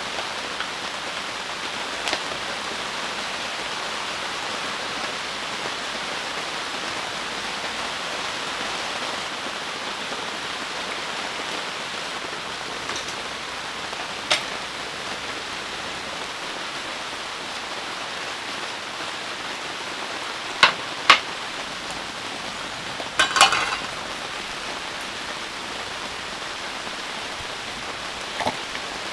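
Heavy rain falling steadily, a constant even hiss. A few short sharp clicks and knocks stand out now and then, the loudest a pair about twenty seconds in followed by a brief clatter.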